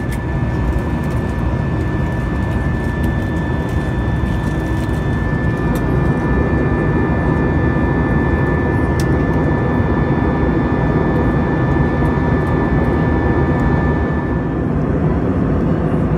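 Airbus A320 cabin noise during the climb: the steady rush of engines and airflow heard inside the cabin, with a thin high whine running through it that drops out near the end.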